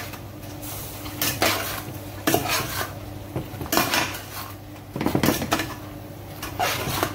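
A metal utensil scraping and clattering against a frying pan as chicken pieces are stirred and turned, in about five strokes spaced a second or so apart, over a steady low hum.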